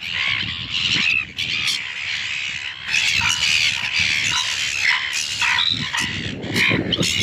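A flock of silver gulls squawking and calling over one another, many calls overlapping without a break.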